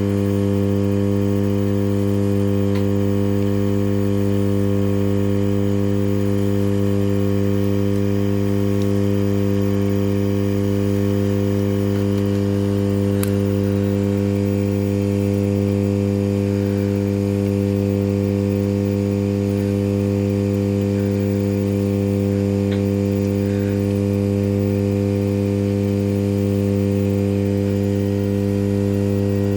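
Hot-air rework station running: a loud, steady electrical hum with a strong low tone and evenly spaced overtones, unchanging while the board is heated to lift the processor.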